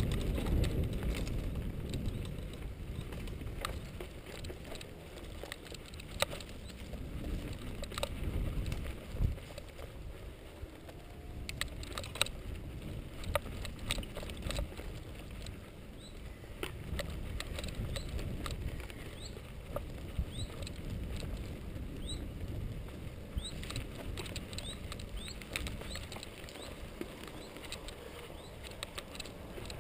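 Mountain bike riding over bumpy grass: a low rumble of tyres and wind on the microphone, swelling and fading, with frequent sharp clicks and rattles from the bike jolting over the ground.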